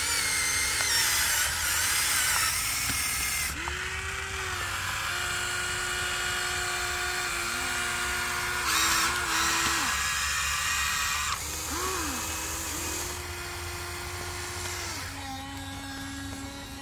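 Electric motors of a Huina remote-control toy excavator whining as the boom and bucket dig and lift. The whine holds one pitch for a second or two, then shifts up or down as each movement starts and stops.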